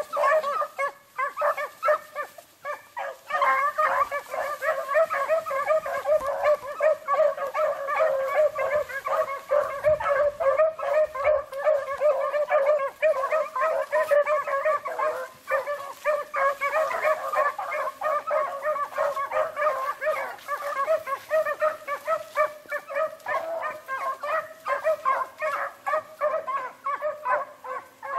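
A pack of beagles baying as they run a rabbit's scent trail, many overlapping voices calling without a break.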